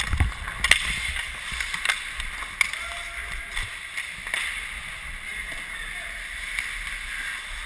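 Ice hockey skate blades scraping and carving the ice in a steady hiss, with a few sharp clacks, the loudest just under a second in.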